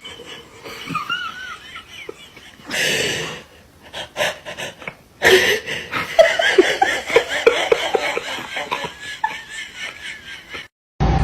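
People laughing, softly at first, then louder and in choppy bursts from about halfway. A short rush of noise comes about three seconds in.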